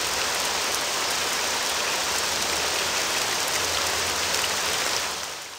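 Steady hiss of rainfall, a rain sound effect, fading out near the end.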